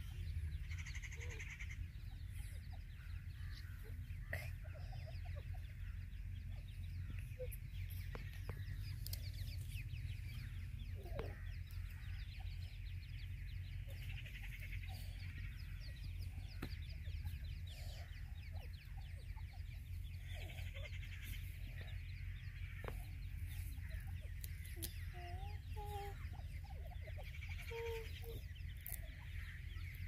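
Teetar partridge chicks peeping in high, thin clusters while the adults give a few soft low clucks near the end, over a steady low rumble.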